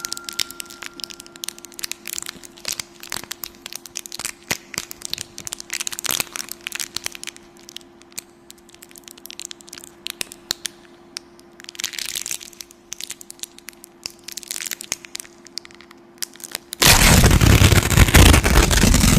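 A horror sound effect of dense, irregular crackling and crunching over a faint steady hum, with two short hissing swells, ending in a loud burst of rushing noise for the last two seconds.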